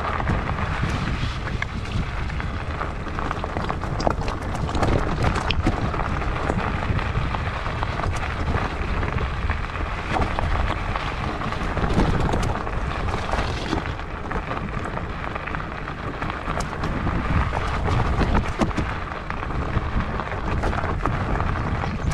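Fat-tyre bike rolling over a loose gravel track, heard through a handlebar-mounted action camera: a steady low rumble of tyres and vibration, with many small clicks and rattles of stones and bike parts.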